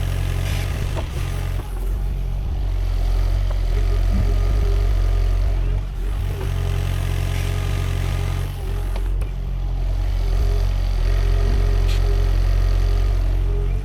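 Sany SY50U mini excavator's diesel engine running steadily, with a strong low hum, dipping briefly a few times.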